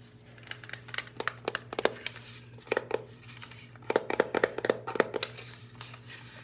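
Fingernails and fingertips tapping and scratching on the plastic body of an instant camera, in quick runs of sharp clicks, densest about four to five seconds in.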